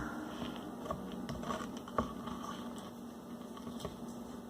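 Steady low electrical hum, with a few faint clicks and taps of small objects being handled.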